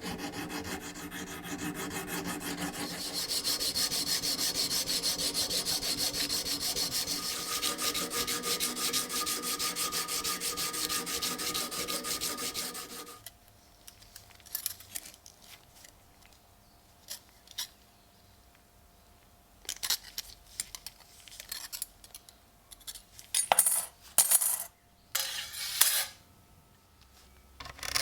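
A hand file scraping in quick, even strokes, which stops suddenly about halfway through. Then scattered small clicks and clinks of hard parts being handled and set down, with a few short scrapes near the end.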